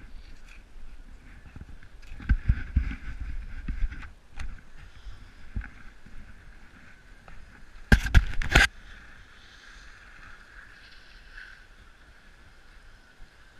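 Scraping and crunching of a rider sliding over rutted snow, picked up by a helmet-mounted camera, with a short burst of loud knocks about eight seconds in.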